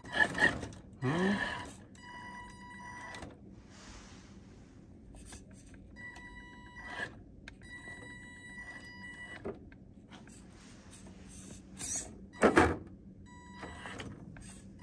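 Electric drive motor of a Carisma SCA-1E micro RC crawler whining in several short spurts as the throttle is worked, a steady high-pitched whine that starts and stops. A few sharp knocks and scrapes stand out, the loudest about two-thirds of the way in, as the truck climbs over rocks.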